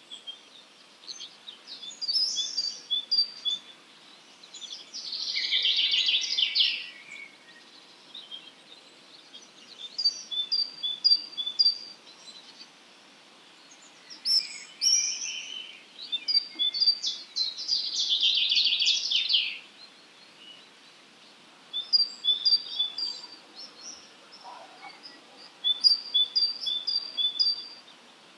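Wild songbirds singing in the dawn chorus. Short phrases of quick, high, repeated notes come every few seconds, and two longer chattering, buzzy passages come about 5 and 17 seconds in.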